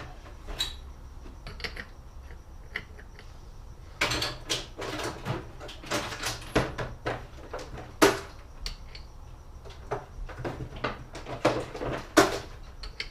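Irregular metallic clinks and knocks of hand tools and engine parts being handled. The loudest knocks come about eight and twelve seconds in.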